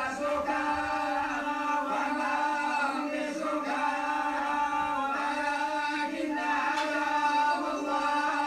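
Group of men reciting the Quran together in unison, a continuous chanted melody with long drawn-out notes, in the style of Moroccan tolba collective recitation.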